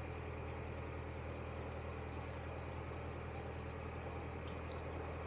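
Narrowboat's diesel engine running steadily while cruising, a low even hum with a slight regular pulse.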